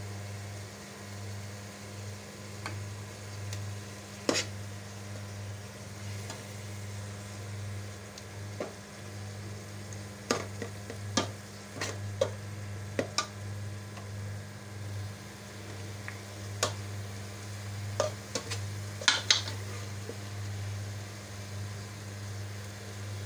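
Minced meat with bone pieces and onions sizzling in a metal pot as it is browned, stirred with a steel spoon that scrapes and clinks against the pot now and then. A steady low hum runs underneath.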